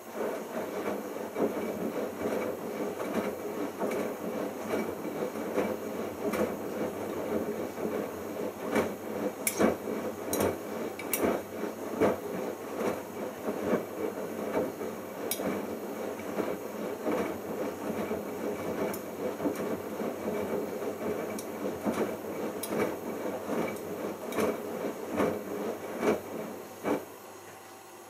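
Bosch Logixx WAS32461 washing machine drum turning a mini load of shirts through the main wash, with the laundry churning and scattered light clicks. The tumble starts sharply and stops about a second before the end.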